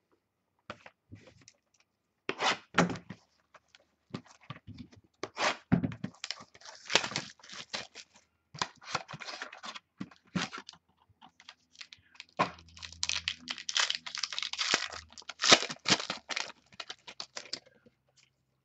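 Cardboard box of 2014 Inception football cards being handled and opened by hand: irregular tearing, rustling and scraping, with light knocks of cardboard.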